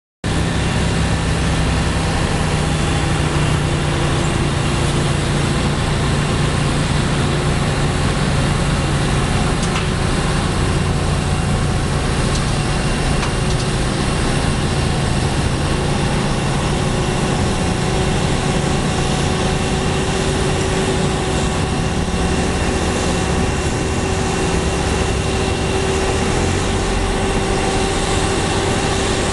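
Pushback tug's engine running steadily as it pushes an Airbus A320neo airliner backwards, mixed with a steady hum and whine from the aircraft. The sound cuts in abruptly just after the start.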